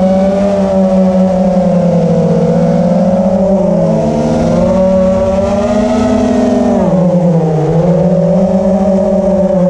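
Brushless motors of a 5-inch FPV racing quadcopter (EMAX ECO II 2306, 1900KV, on 4S) whining with three-blade props, heard from the camera on the quad. The pitch wavers up and down with the throttle, drops sharply about seven seconds in, then climbs back.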